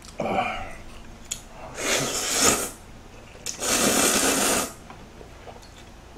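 Two long, loud noodle slurps, about a second each and two seconds apart, as seafood ramen is sucked up from a bowl held to the mouth, after a brief short sound just at the start.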